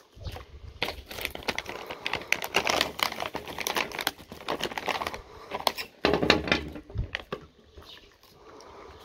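Plastic dog-treat pouch crinkling and crackling as it is handled, opened and a treat is pulled out, with a sharp knock about seven seconds in.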